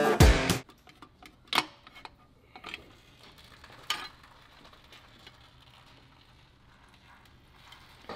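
Guitar outro music cuts off about half a second in. Then come a few faint, scattered clicks and taps of hand tools against the exposed bottom end of a BMW S65 V8 with its oil pan off.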